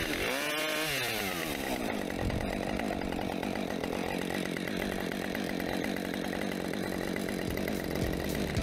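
Chainsaw cross-cutting a hinoki (Japanese cypress) log. The engine note swings up and back down in the first second or so, then holds steady as the chain runs through the wood.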